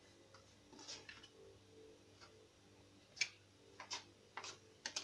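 Faint, sharp taps of a plastic dough scraper cutting a roll of dough into pieces and striking the marble countertop, about half a dozen of them, the loudest about three seconds in.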